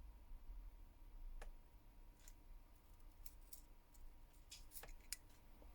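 Near silence with a few faint, scattered clicks and taps from handling small smartphone parts, the camera modules and the motherboard.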